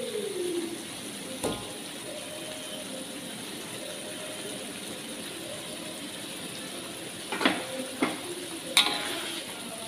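Chilli sambal sizzling steadily in an aluminium wok. There is a sharp knock about a second and a half in, and three more clatters near the end as fried fish pieces are set into the sauce.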